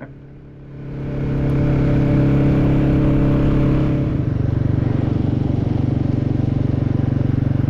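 Royal Enfield motorcycle engine pulling hard, getting louder about a second in. About four seconds in its pitch steps down and it carries on at a lower note, like a shift up a gear.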